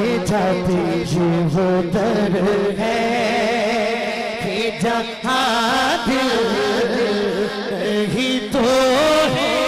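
A male naat reciter singing a devotional naat into a microphone through a sound system, his voice sliding and wavering in long ornamented lines over a steady low held tone.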